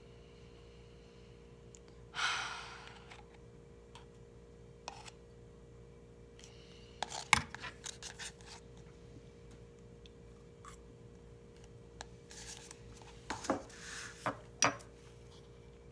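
Scattered clicks and taps from someone working at a desk: a short rustle about two seconds in, a cluster of clicks in the middle and another near the end. A steady low hum runs underneath.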